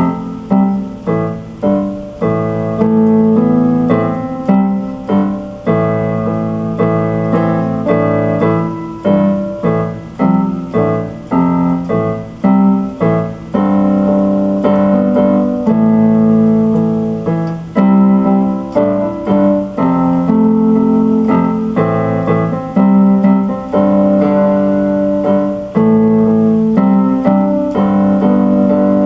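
Solo keyboard music with a piano sound: repeated struck chords with a melody line above them.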